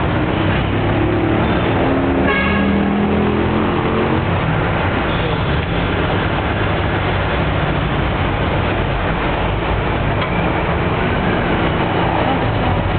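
Jeepney's diesel engine running and road noise, heard from aboard as it moves at low speed, steady throughout.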